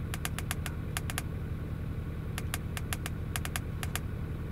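Quick runs of sharp clicks from the buttons of a handheld diagnostic scan tool being pressed to scroll through a menu, over the steady low hum of a Land Rover Discovery 3's engine idling.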